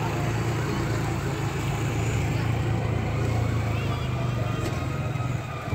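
ATV (quad bike) engines running steadily at low speed as they roll past.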